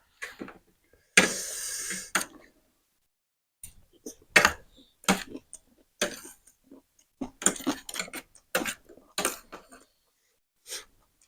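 Noodle-eating sounds: a loud, noisy slurp lasting about a second, starting about a second in, then a string of short clicks, clinks and smacks from chewing and from utensils on the bowl.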